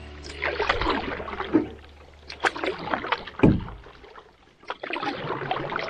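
Canoe paddle strokes in the water, several uneven swishes with small knocks, and one sharp thump about three and a half seconds in.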